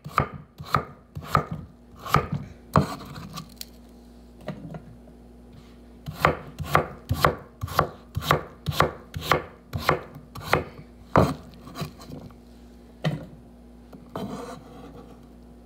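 Chef's knife chopping through a raw potato onto a wooden cutting board, in runs of sharp knocks about two a second with a pause of a couple of seconds between them, and a brief scrape on the board near the end.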